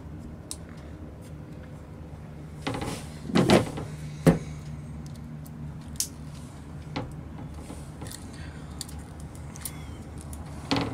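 Channel-lock pliers crimping a yellow jumper connector onto the light's wires: handling rustle and several sharp clicks and snaps of tool and connector, the loudest a single sharp click about four seconds in. A steady low hum runs underneath.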